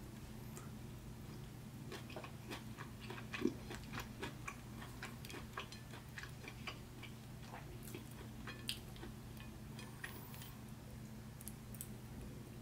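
Close-miked eating sounds: a run of small wet clicks and smacks from chewing and from fingers pulling apart saucy stewed beef, over a steady low hum.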